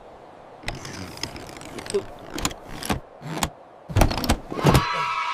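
A series of irregular mechanical clicks and clunks, about nine over five seconds and louder in the last second and a half. A steady high tone sets in near the end.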